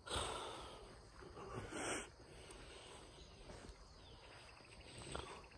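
Quiet outdoor background with two brief rustling noises, one at the start and one a little under two seconds in, and faint insect trilling in the second half.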